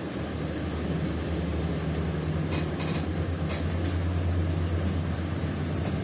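A low steady hum over a bed of background noise. It grows louder about a second in and eases again near the end, with a few faint clicks in the middle.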